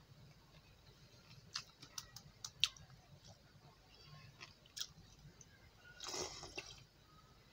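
Faint eating sounds from fingers tearing smoked roast chicken on a steel plate: a few sharp crackles and clicks, then a short scraping rustle about six seconds in as a steel bowl is lifted.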